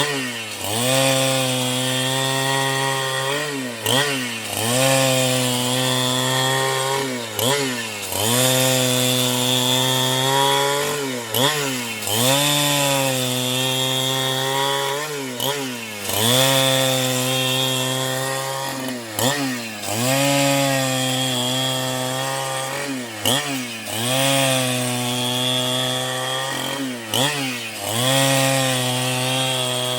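Chainsaw running at high revs, sawing a wood block. About every four seconds the engine pitch drops sharply and climbs back.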